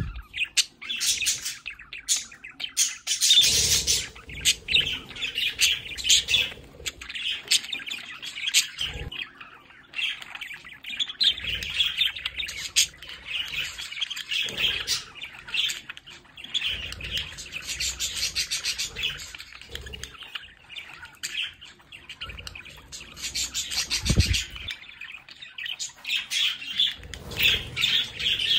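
A small flock of budgerigars chattering, chirping and warbling continuously, with the odd sharper squawk. A few short low thumps break in, the strongest late on.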